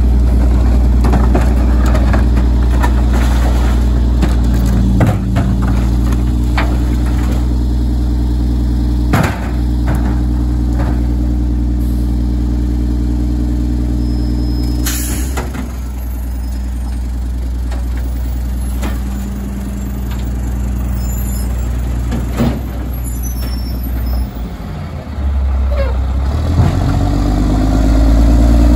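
A 2007 Mack LE garbage truck's diesel engine runs at raised revs as it works the Heil rear-loader packer, with cardboard and recycling knocking and clattering into the hopper. About fifteen seconds in, a sharp hiss of air sounds and the engine drops to a lower idle. Near the end the engine rises again before falling away.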